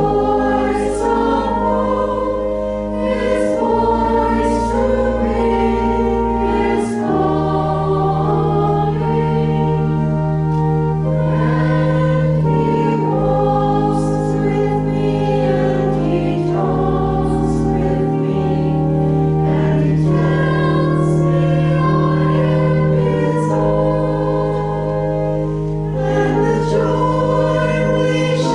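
A choir singing a slow hymn over long, held low accompaniment notes that change every few seconds.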